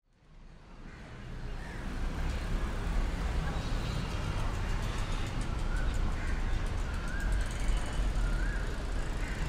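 Outdoor street ambience fading in from silence: a steady hum of road traffic with a low rumble, and a few short warbling tones in the second half.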